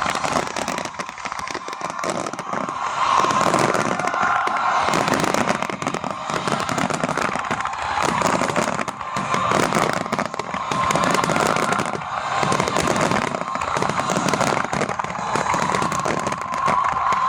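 Aerial fireworks display: a dense, unbroken stream of bangs and crackles from shells bursting one after another, with a wavering high tone running under it.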